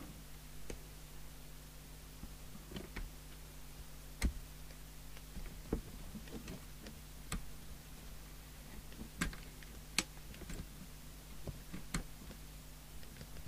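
Scattered light clicks and taps, about a dozen spread unevenly, from hands handling and working inside the open chassis of a CB radio, over a faint steady low hum.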